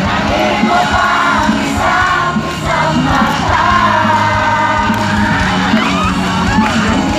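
Loud music with singing, and a crowd singing and yelling along.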